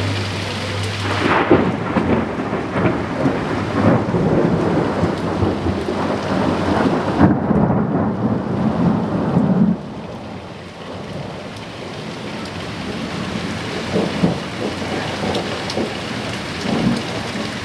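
Thunder rumbling and crackling over heavy rain, dropping away suddenly about ten seconds in, then steady rain with a few faint rumbles.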